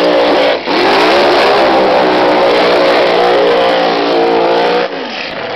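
Pro Mod drag racing car doing a burnout: the engine is held at high revs with its tyres spinning, dips briefly about half a second in, then is cut back abruptly near the end to a much lower level.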